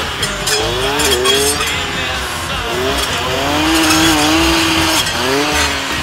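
Two-stroke engine of a brush saw (clearing saw) revving up and dropping back again and again as it cuts through young trees, with one longer steady high rev near the middle.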